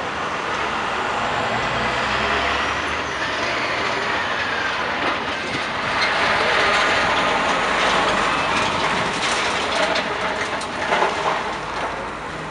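Steady rush of vehicle and traffic noise that swells in the middle, with a few sharp knocks about ten to eleven seconds in.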